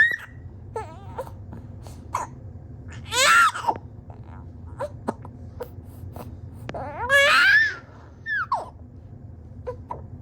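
A baby with the hiccups crying in frustration: two loud, high-pitched cries that rise and then fall, about three and seven seconds in, with short sharp catches between them.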